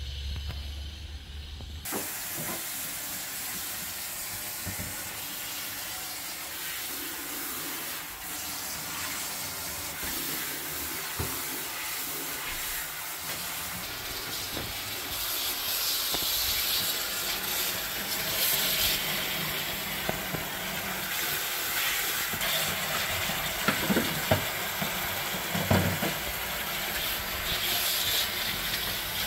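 Kitchen tap running in a steady hissing stream into a metal sink as green onions are rinsed under it, with a few sharp knocks from handling in the sink in the second half.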